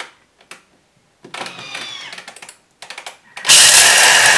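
Thermomix TM5 (Bimby) blades chopping roasted peanuts at top speed. A moderate whirring rattle with a shifting whine starts about a second and a half in, and a few clicks follow. About three and a half seconds in, a loud, harsh grinding begins.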